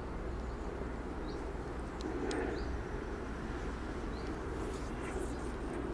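Steady low outdoor background noise with a few faint high bird chirps and one sharp click about two seconds in.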